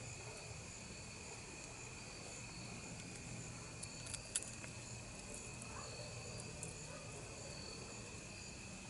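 Faint, steady chirring of crickets and other night insects, with a few light clicks about four seconds in.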